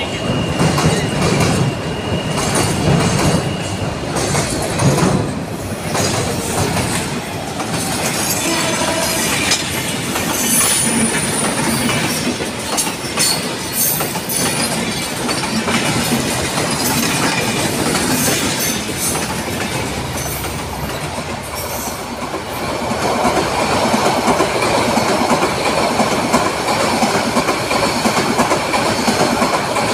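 Trains passing close by: a container freight train, then Intercity passenger coaches, their steel wheels clacking over rail joints with brief high wheel squeals. The running noise grows louder about 23 s in.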